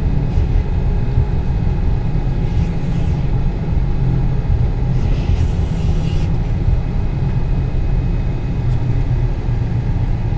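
Steady low rumble of a Vickers VC10 airliner's four Rolls-Royce Conway engines and airframe during a taxi run down the runway, with brief hissing swells twice.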